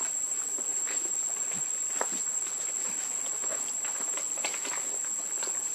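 Steady, high-pitched insect drone, with scattered light rustles and taps from macaques moving over rocks and dry leaves.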